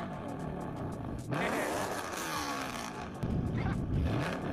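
Cartoon car engine sound effects: engines revving and cars driving past, with the pitch rising and falling, and a new pass starting about a second in and again near three seconds.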